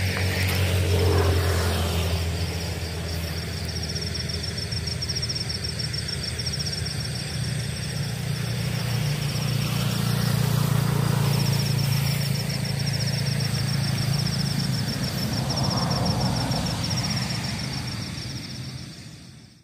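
Evening outdoor ambience: a low engine hum of passing vehicles that swells and eases, under a high, fast-pulsing chirring that breaks off briefly midway. The whole sound fades out near the end.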